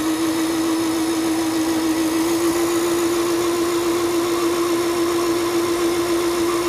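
Singer Stylist 7258 computerized sewing machine's motor driving the bobbin winder, spinning a 15J bobbin full of thread at a steady speed with an even whine.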